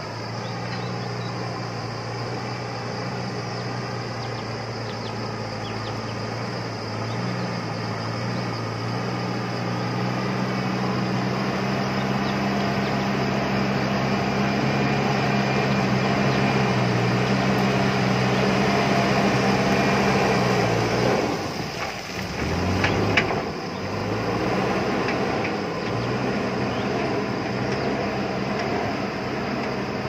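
JCB backhoe loader's diesel engine working under load as its front bucket pushes earth and rock, growing louder as it comes closer. About two-thirds of the way through the engine note drops and breaks with a few brief clatters, then it runs on at a lower, steady pitch.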